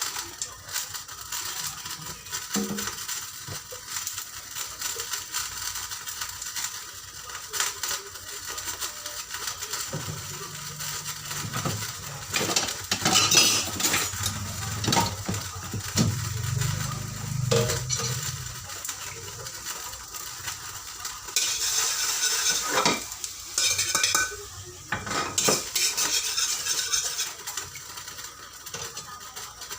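Metal cookware and utensils knocking and clinking on a stove as a small wok is heated for frying potatoes. Two short spells of sizzling come about two-thirds of the way through.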